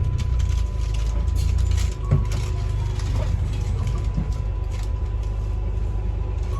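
Double-decker bus running, heard from inside the passenger saloon: a steady low engine and road rumble with a thin, steady whine over it, and a single sharp knock about two seconds in.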